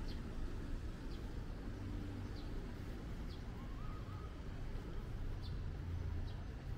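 City street ambience: a steady low rumble of road traffic with short, high bird chirps about once a second and a brief warbling call near the middle.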